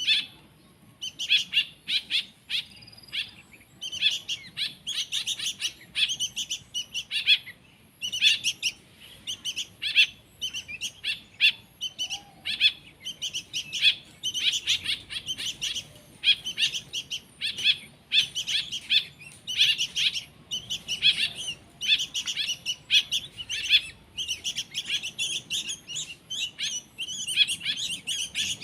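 Young songbird chicks chirping in rapid, high-pitched clusters that run on almost without a break, the insistent calling of hand-reared nestlings waiting to be fed.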